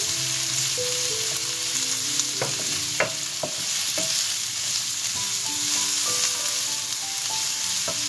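Julienned carrots and chopped shallots sizzling in olive oil in a non-stick wok as they are stirred with a wooden spatula. The spatula knocks against the pan four times around the middle.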